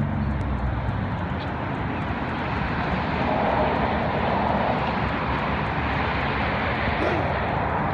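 Cars passing on a road, a steady traffic rush that swells to its loudest in the middle as a pair of cars drives by.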